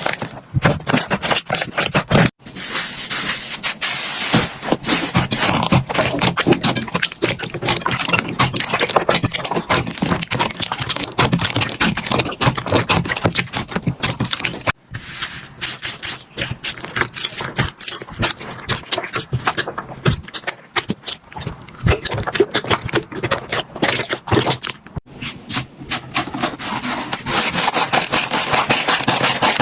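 Slime being played with, giving a dense run of sticky crackling and popping clicks, with abrupt changes in texture about two, fifteen and twenty-five seconds in as one clip cuts to the next.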